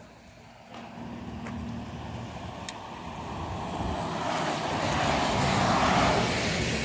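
City bus driving past close by. Its sound builds, is loudest as it passes alongside about five to six seconds in, then starts to fade.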